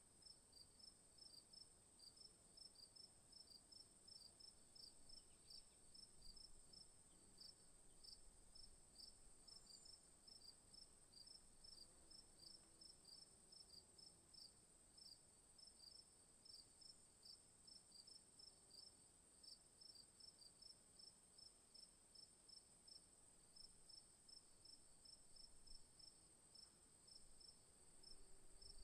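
Faint insect chorus of crickets: a continuous high-pitched trill over a quick, regular chirping of a few chirps a second.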